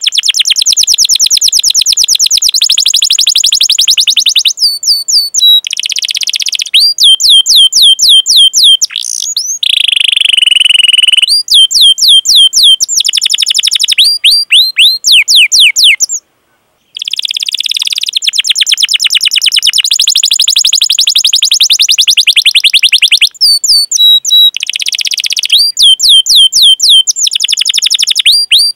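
Domestic canary singing: long, very fast rolling trills alternate with series of sharp falling 'cuit cuit' chirps, with a brief pause a little past halfway.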